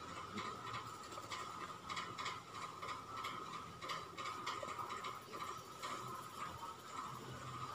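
Plastic clicking and rattling, about three clicks a second, as a green plastic stick is waved and knocked against a plastic laundry basket to tease a cat.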